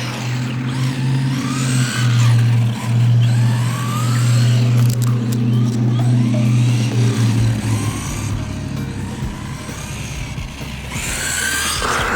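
Electric RC car (Traxxas 1/10 Ford GT 4-TEC 2.0) running, its motor whining up and down as it speeds up and slows, over background music with a steady low drone.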